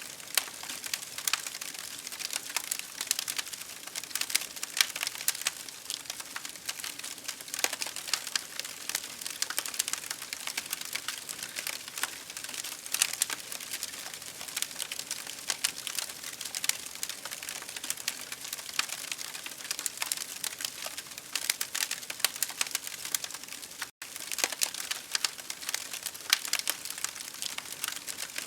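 Campfire crackling: dense, irregular pops and snaps of burning wood over a steady hiss, cutting out for an instant about three-quarters of the way through.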